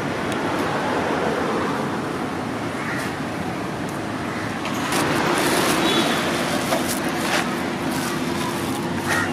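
Road traffic running steadily, with a steady low hum and a few light clicks and taps.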